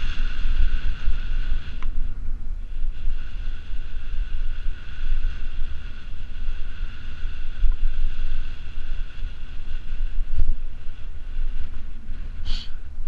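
Wind buffeting the microphone of a handlebar-mounted action camera on a moving bicycle, a steady low rumble with a faint high whine running under it. A brief high chirp sounds near the end.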